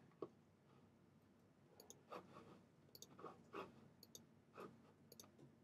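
Faint clicks of a computer mouse, four of them about a second apart, each a quick double click-clack, with a few soft rustling noises between.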